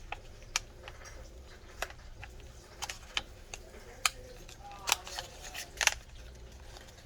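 A small plastic packaging bag being handled and opened: scattered crinkles and sharp little clicks, a few louder ones in the second half.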